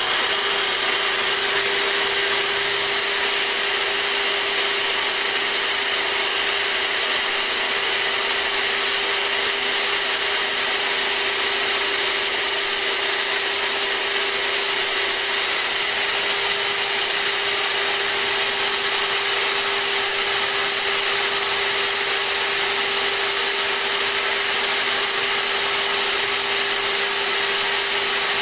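A hobby CNC router milling acrylic plastic, its spindle motor running together with a shop vacuum on the dust shoe and a hissing compressed-air jet. One steady, unchanging mechanical noise with a constant hum-like tone.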